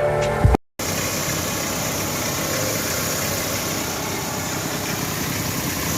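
Intro music cuts off about half a second in, then a car engine running steadily at idle.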